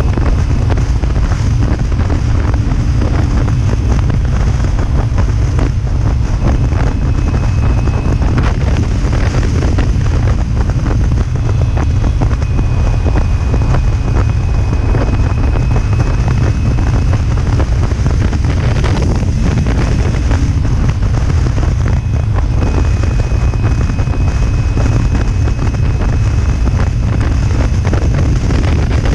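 Steady, loud wind buffeting on the microphone of a Kawasaki Ninja 300 cruising at highway speed, with the motorcycle's parallel-twin engine running evenly underneath.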